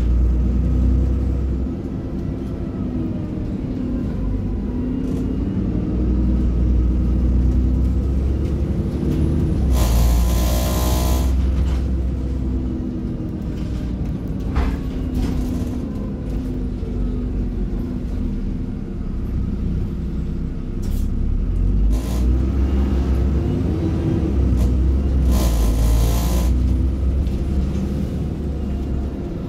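Bus engine running under way, its pitch rising and falling as the ZF automatic gearbox changes gear. Two short bursts of hiss, about ten seconds in and again about twenty-five seconds in.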